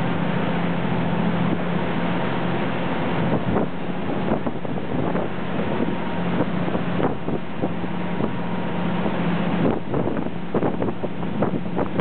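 Khlong Saen Saep express boat's diesel engine running steadily, with a rush of water and wind around the hull and canopy. There is a run of sharp crackles near the end.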